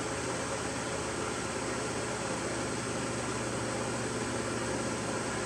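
Electric shop fan running: a steady whirring hiss with a low hum underneath.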